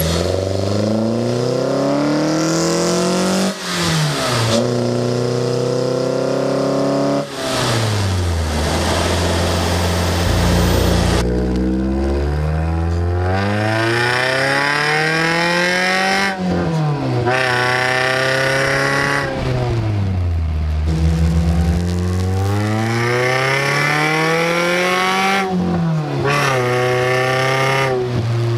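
Scion xB's engine through a Borla axle-back exhaust with the muffler deleted for a long glasspack, plus an aftermarket intake, accelerating under load. The engine note climbs in pitch, then drops sharply at each gear change, over and over through several pulls, heard from inside the cabin.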